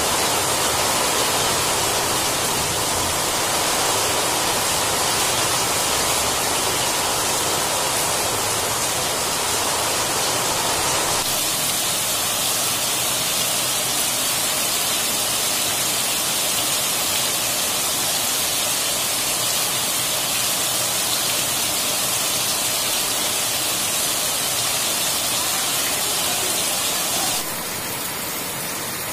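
Heavy rain pouring down steadily as a dense hiss, splashing on a flooded paved courtyard. The sound changes character about eleven seconds in and drops a little in level near the end.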